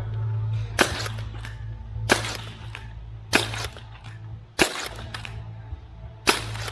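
Foam-dart blaster fired five times in single sharp shots, roughly one every second and a quarter.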